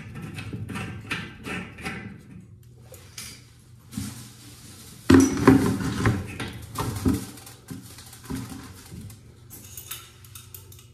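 Scattered light metallic clinks and knocks as a braided sink supply line and its fittings are worked loose by hand, with a louder cluster of knocks about five seconds in.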